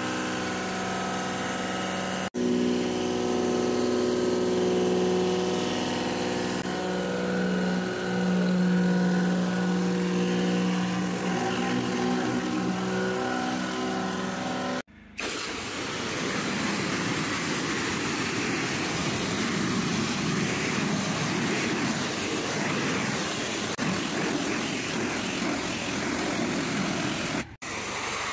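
Petrol pressure washer engine running steadily with a stack of humming tones while a steel surface cleaner is worked over wet timber decking. After a sudden break about halfway through, the sound becomes a hissing water jet from the lance with the engine running behind it.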